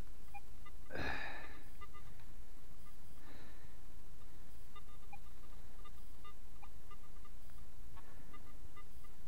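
A shovel digging into lawn soil: a sharp scrape-and-crunch about a second in and a softer one a little after three seconds, over a steady hiss.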